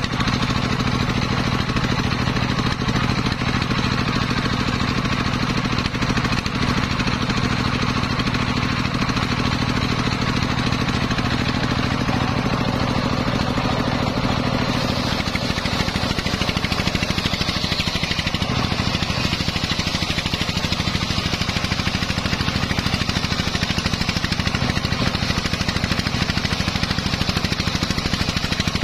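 Homemade belt-driven circular saw ripping a teak log lengthwise, the blade cutting through the wood over the steady running of its drive engine. The low engine note shifts about halfway through.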